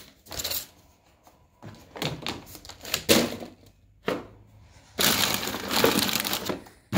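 Paper bags and packaging being crumpled and pushed down into a small trash bin by hand, in several crackling, rustling bursts, the longest near the end.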